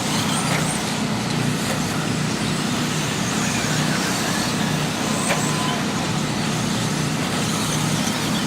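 A field of 2WD short course RC trucks racing: a dense, high hiss of motors and tyres on dirt with a few faint rising whines, over a steady low hum.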